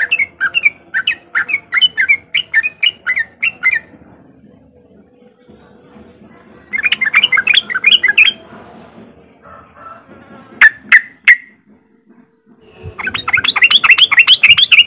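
Yellow-vented bulbul giving its chattering 'riwik' call: a rapid run of quick bubbly notes, a pause, a second short burst, three sharp clicks, then a denser chattering burst near the end.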